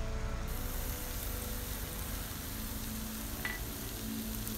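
Shredded chicken cooking in coconut milk in a wok, sizzling faintly as it is stirred with a wooden spatula, under soft background music with held notes. One light click about three and a half seconds in.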